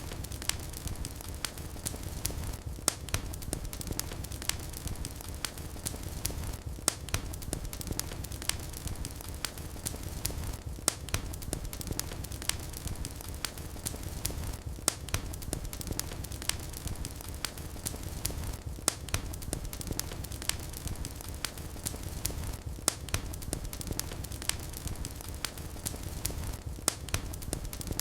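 Wood fire burning in a fireplace: frequent sharp crackles and snaps over a low, steady rumble of flames.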